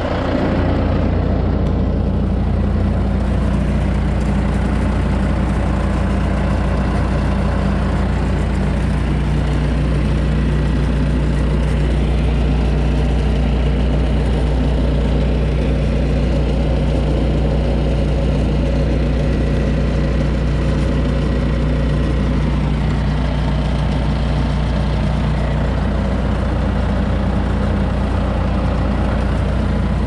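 Bobcat S250 skid steer's turbocharged diesel engine running steadily.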